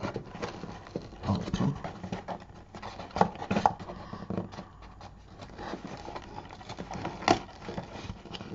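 Scissors cutting and prying at the packing tape on a cardboard box, with the tape and flap being pulled and torn by hand: irregular scraping and rustling with a few sharp clicks, two of them about three and a half seconds in and one about seven seconds in.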